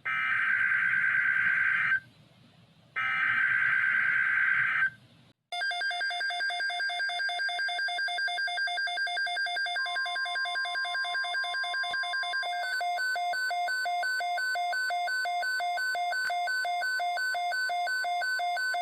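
NOAA Weather Radio emergency alert: two buzzy digital data bursts of about two seconds each (the SAME alert header), then the weather radio receiver's pulsing electronic alarm beeping rapidly for the rest of the time. A steady warning tone sounds underneath for a few seconds midway, and the alarm's beep pattern changes near the end.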